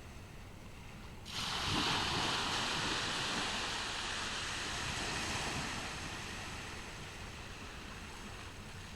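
Ocean surf on a beach: a wave breaks with a sudden rush of hiss about a second in, then washes out and fades over several seconds, over a steady low rumble of the sea.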